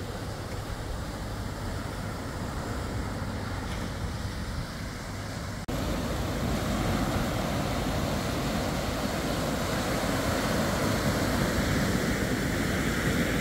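Wind noise on the microphone, then, after a sudden cut about six seconds in, louder surf: small waves washing up a sandy, rocky shore, with wind over it.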